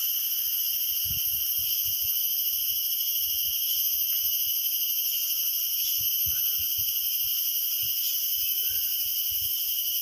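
Tropical forest insects droning steadily in several high pitches at once, with wind rumbling on the microphone now and then.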